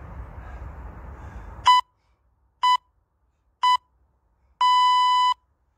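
Workout interval timer beeping: three short beeps about a second apart, then one longer beep at the same pitch, the countdown signal that ends a work interval. The background noise cuts off as the first beep sounds.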